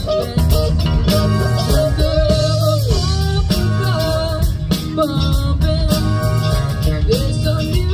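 Live rock band playing: electric guitars, bass, keyboards and drum kit, with a female voice singing the melody.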